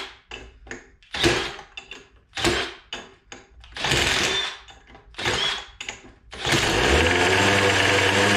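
A cordless drill spins a small two-stroke leaf blower engine in five short bursts to crank it over. About six and a half seconds in, the engine catches on nitromethane RC car fuel and runs steadily to the end.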